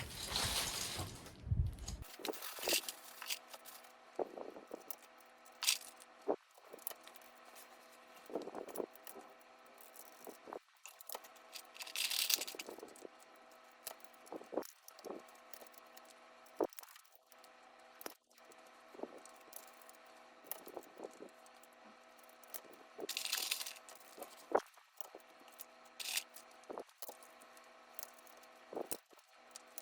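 Plastic keycaps being pulled off and pressed onto a mechanical keyboard: scattered light clicks and knocks, with two longer rustling scrapes, around twelve seconds in and again about twenty-three seconds in.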